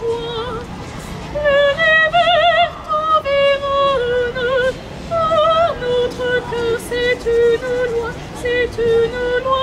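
A woman singing solo and unaccompanied, one melodic line with wide vibrato on the held notes and a run of short repeated notes in the middle.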